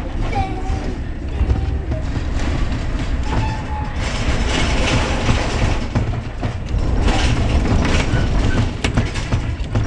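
Tram running along the track, its wheels rumbling on the rails. The rolling noise grows louder from about four seconds in, with a couple of brief faint squeals early on and a sharp click near the end.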